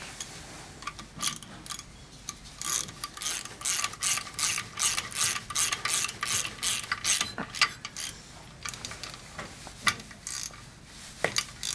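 Hand socket ratchet clicking stroke after stroke as the clutch pulley's center bolt is run into the pump shaft, with a short pause partway through before the clicking resumes.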